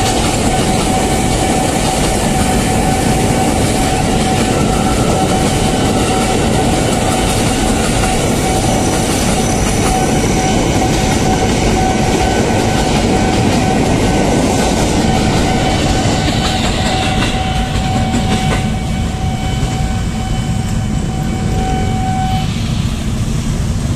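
Electric commuter train running past at a level crossing, a steady noise of wheels on rails. Over it the crossing's warning alarm holds one constant high tone, which cuts off suddenly about twenty-two seconds in as the train noise thins.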